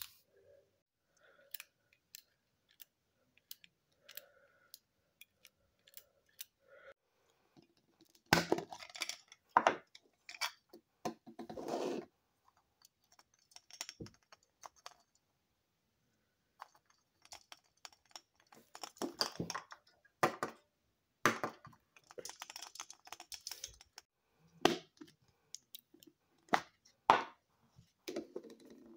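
Small plastic toys being handled: scattered light clicks for the first several seconds, then bursts of rustling, clicking and clattering plastic. Near the end a plastic toy capsule is pulled apart.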